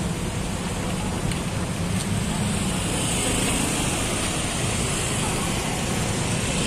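Steady roadside traffic noise from a queue of idling, slow-moving cars and motorbikes, with a crowd's voices mixed in.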